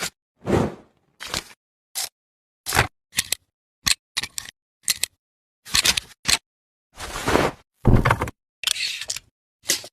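Film-burn transition sound effect: a string of irregular short clicks, snaps and crackling bursts of noise, like camera shutter clicks and film flicker, cut apart by dead silence. There are about fourteen bursts, the longer ones in the second half.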